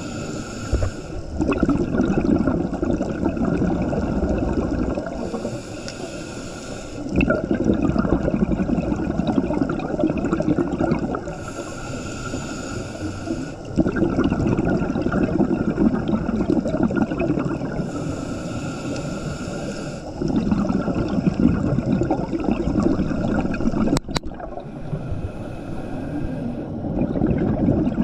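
Water bubbling and gurgling in a repeating cycle: about two seconds of hiss alternating with about four seconds of low bubbling, roughly every six to seven seconds, with a single sharp click near the end.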